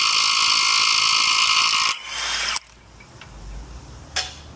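Impact gun running on the 32 mm axle nut of a Honda Civic's driver-side CV axle with a steady hammering. It weakens about two seconds in and cuts off shortly after.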